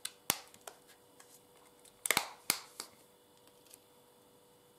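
Plastic scented wax-melt cup being handled and opened: a sharp click about a third of a second in, then a cluster of louder clicks and crackles about two seconds in, with a few small ticks between, over a faint steady hum.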